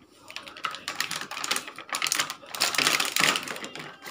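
Clear plastic toy packaging crinkling and crackling in uneven spurts as it is handled and pulled open.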